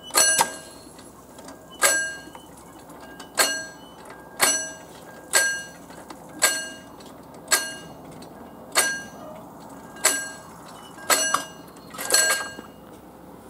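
Pre-warning bell (předzváněč) of mechanical level-crossing barriers ringing in single struck strokes, roughly one a second, as the barriers are lowered to close the crossing. The strokes stop about twelve seconds in, once the barriers are down.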